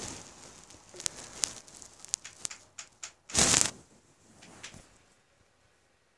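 Camera handling noise: scattered clicks and rubbing as the handheld camera is moved, with one loud rustle about three and a half seconds in. It dies away after about five seconds.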